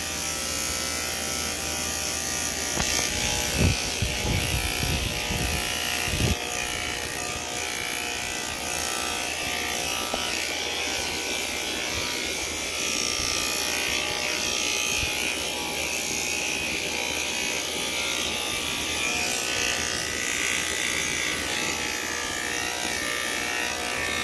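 Electric hair clippers buzzing steadily while shaving a head. A few low knocks and bumps come a few seconds in.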